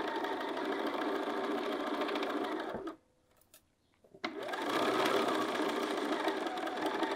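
Bernina sewing machine stitching steadily through fabric, stopping for about a second midway with a faint click, then stitching again: sewing the start of a seam and back tacking to reinforce it.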